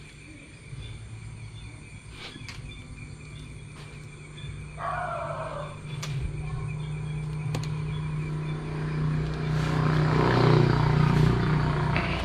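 A motor vehicle's low engine rumble grows louder from about halfway through and is loudest a second or two before the end, over a steady high-pitched trill of night insects.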